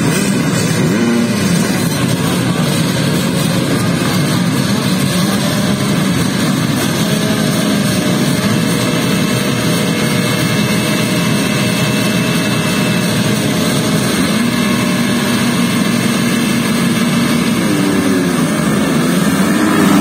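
A full starting gate of motocross bikes running and revving together in a dense, steady engine noise. Near the end the engines rev up hard and get louder as the bikes launch off the line.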